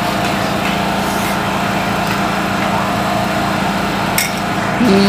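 Steady machine hum from a running motor, with a constant low drone and a higher whine over it. A brief click comes about four seconds in.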